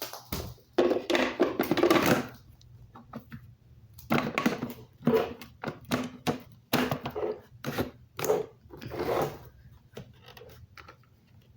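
Bissell PowerForce Bagless vacuum being handled while switched off: a string of irregular rustles, knocks and plastic clatters as its dust cup and filter parts are taken out and fitted back.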